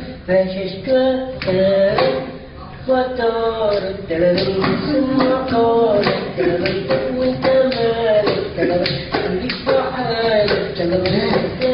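A man's voice in Arabic, delivered in a sing-song, chant-like way with held notes and short pauses.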